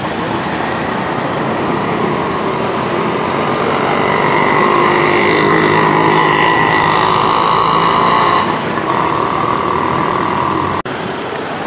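Street traffic: auto-rickshaw and motorcycle engines running and passing, with a louder vehicle going by close from about four to eight seconds in. The sound breaks off sharply for a moment near the end.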